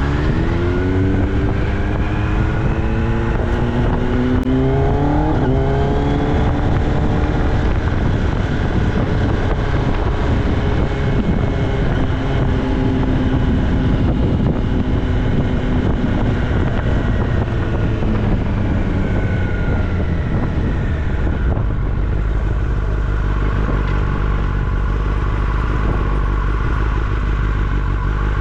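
Kawasaki ZX-10R inline-four running through an Austin Racing exhaust while riding. The revs climb over the first five seconds or so, then the engine holds a steadier note that slowly drops as it eases off. A low steady rumble fills the last few seconds.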